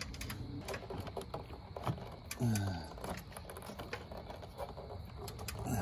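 Scattered small clicks, taps and scrapes of an outdoor lantern-style light fixture being pressed against its wall electrical box, with the wires being stuffed in behind it.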